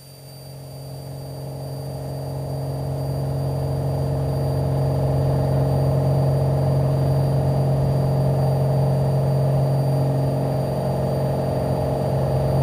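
Single-engine piston airplane's engine coming up to full takeoff power, growing louder over the first few seconds and then holding a steady drone at full power for the takeoff run.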